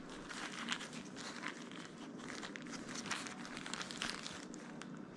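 Thin disposable plastic gloves crinkling, with small scrapes and clicks of a plastic bench scraper cutting through soft pastry dough onto a silicone mat: a light, continuous crackle of many small ticks.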